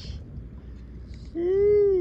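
A man's long "woo" whoop of excitement, rising and then falling in pitch, starting just over halfway through, over wind rumble on the microphone.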